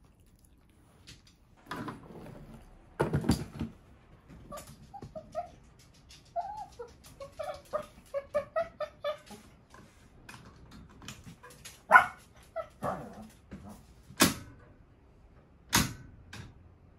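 Small dog whining in a string of short, high notes for several seconds in the middle. Several sharp knocks and bumps come before and after.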